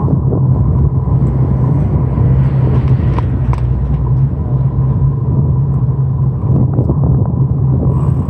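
Steady rumble of a vehicle travelling along a paved street: a continuous low hum with road and wind noise.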